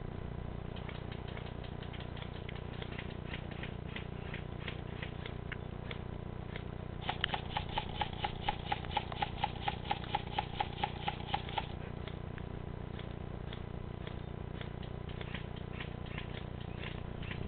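Airsoft guns firing at a distance: scattered single shots, and about seven seconds in a run of some twenty quick shots, four or five a second, lasting about four and a half seconds, over a steady low rumble.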